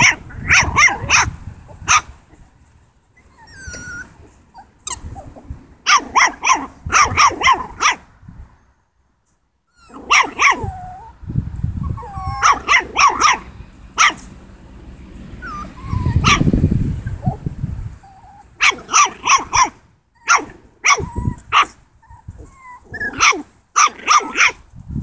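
Italian Greyhound puppy yapping at a toy in play: short, high-pitched barks in quick runs of three or four, repeated again and again.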